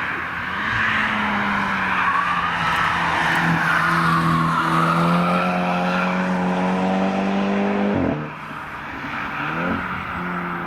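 Car engine pulling hard on a wet track, its note slowly climbing, then dropping sharply about eight seconds in as the car shifts up or lifts off, with a further quick rise in pitch shortly after. A steady hiss of tyres on wet tarmac runs underneath.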